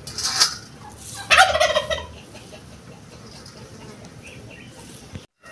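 A bird, most like a domestic fowl, calling in two short bursts about a second apart, the second longer and louder.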